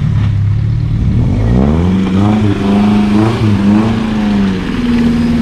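Off-road 4x4's engine revving under load as it pulls through mud: the pitch climbs about a second in, rises and falls through the middle, then holds higher near the end.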